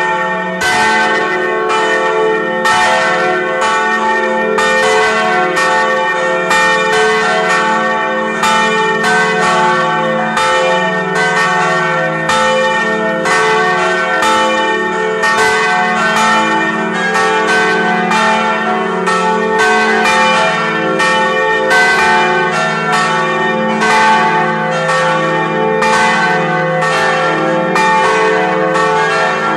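Several church bells of St. Stanislaus Cathedral in Vilnius pealing together, loud and steady. Their strokes overlap a few times a second over a continuous low hum.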